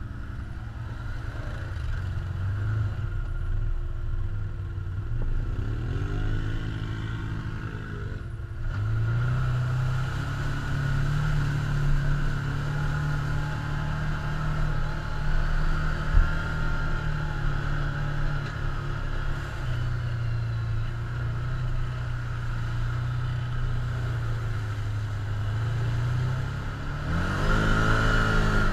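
Can-Am Commander side-by-side's V-twin engine running under way, heard from the driver's seat. The revs sweep up and down a couple of times and the engine note climbs about nine seconds in as it picks up speed. A single sharp knock comes partway through.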